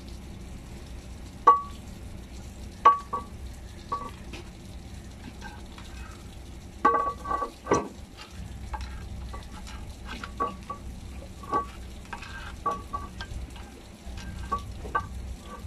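Scattered sharp metallic clinks and scrapes, some ringing briefly, from hand tools and parts being worked at the flywheel and clutch of a MAN TGS truck's engine. A cluster of clinks comes about seven seconds in, over a low steady hum.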